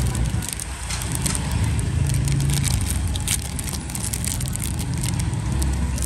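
Crinkling, crackling handling noise with scattered clicks, over a steady low rumble.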